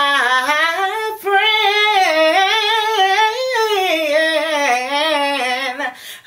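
A woman singing a gospel praise song unaccompanied, stretching the word "my" into a long, ornamented melisma that slides up and down in pitch, with a short break for breath about a second in.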